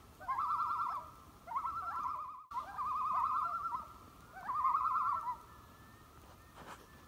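Common loon tremolo calls: a rapidly wavering, yodel-like note repeated in about four phrases, each opening with a short rising note.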